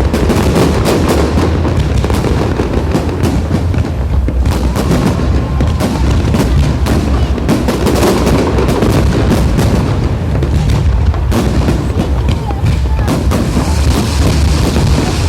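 Fireworks salute going off in quick succession: many sharp bangs and crackles over a steady low rumble of shells bursting.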